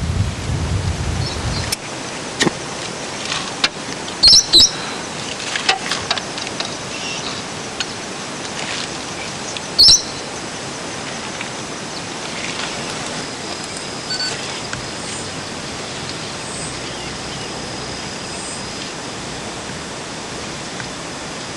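Outdoor bush ambience: a steady hiss, with a low wind rumble in the first two seconds and a few short, high bird chirps, two about four seconds in and one about ten seconds in.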